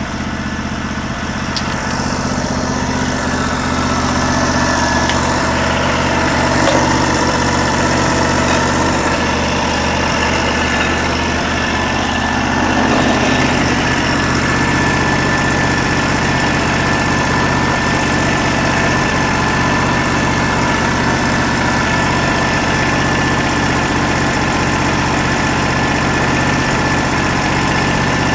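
Norwood LM29 portable band sawmill's engine running steadily, driving the band saw blade as it cuts a board from a log.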